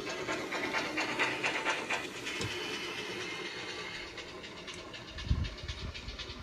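Model steam locomotive's DCC sound decoder (ESU LokSound V4 Micro) playing pannier tank exhaust through a small speaker as the loco runs: steady rhythmic chuffing, with a few low thumps near the end. The sound file loaded is one for a 64XX pannier, the wrong one for this locomotive.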